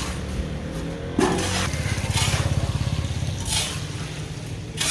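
A small vehicle engine running steadily at low revs, with a few short rushes of noise about a second in, midway and near the end.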